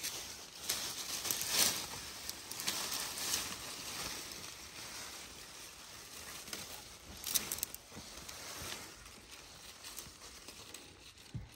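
Irregular rustling and scuffing with a few soft knocks, loudest about one and a half seconds in and again around seven seconds in.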